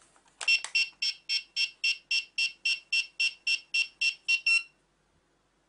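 Toy quadcopter's radio transmitter beeping as it powers up: a run of short high electronic beeps, about four a second, that stops after about four seconds.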